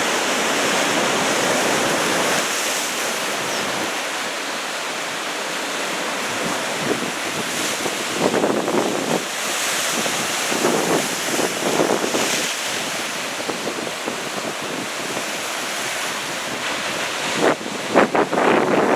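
Ocean surf from large typhoon swell breaking and washing on the shore, a steady rush of water. Wind buffets the microphone in gusts, hardest near the end.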